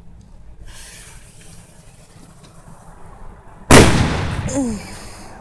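A homemade firecracker, a small plastic 5-hour Energy bottle packed with 4FG black powder and a cannon fuse and capped tight, bursts with one loud bang about three-quarters of the way in, followed by a rumbling echo that fades over a second or so.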